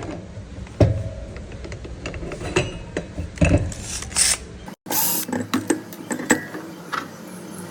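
Scattered clicks and knocks of hand tools and metal parts being handled during work on an angle grinder, with no motor running. There is a brief dropout about halfway through.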